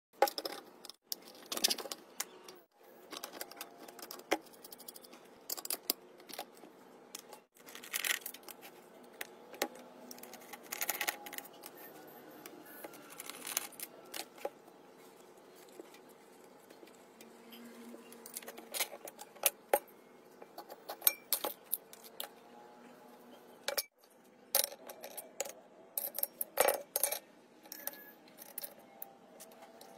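Metal fan motor parts and hand tools clinking, tapping and scraping as the motor is handled and taken apart on a workbench: scattered sharp clicks and knocks, with a few abrupt breaks in the sound.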